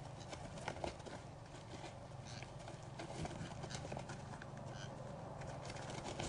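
White-tailed deer hooves thudding and crunching on frozen snow in irregular steps and stamps as the deer rear up, strike at each other and dash about, over a steady low hum.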